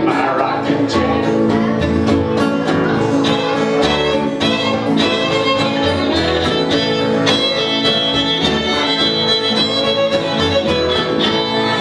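Folk string band playing an instrumental break: a fiddle carries the tune over strummed acoustic guitar and plucked upright bass, keeping a steady beat.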